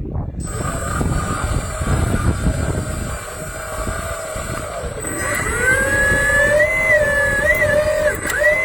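Heavy earthmoving machinery working rock: a loud, rough rumble, then a high whine that rises in about five seconds in and wavers up and down in pitch, like a diesel machine's engine or drivetrain under changing load.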